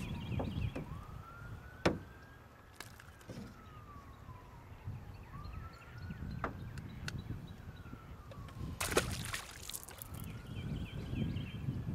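A wailing siren, its pitch rising and falling slowly about every four seconds. Sharp knocks cut across it, the loudest about two seconds in and a few more near the end.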